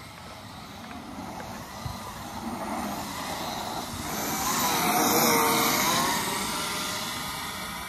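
Kyosho Mad Force RC monster truck with a brushless electric motor driving past: the motor whine and tyre noise build up, are loudest about five seconds in, then fade as it moves away.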